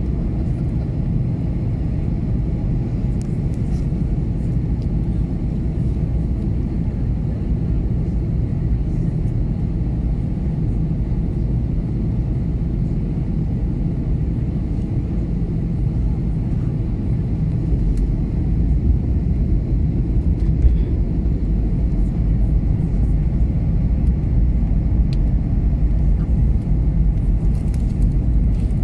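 Steady low rumble inside the cabin of an Airbus A321neo airliner on approach: engine and airflow noise. It grows a little louder about two-thirds of the way through.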